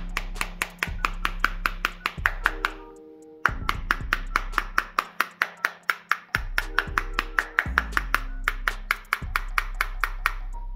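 Background music with a quick, steady ticking beat over held bass notes.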